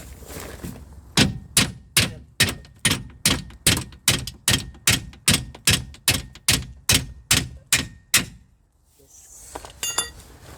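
Hammer blows on metal, a steady run of about eighteen ringing strikes at roughly two and a half a second, forcing a steering-rack part into mounting holes that don't line up. A few light metallic clinks follow near the end.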